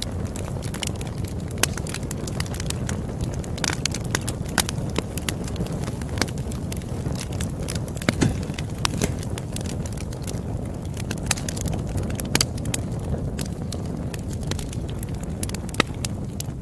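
Campfire burning: a steady low rush of flames with irregular sharp crackles and pops from the burning wood, a few pops louder than the rest.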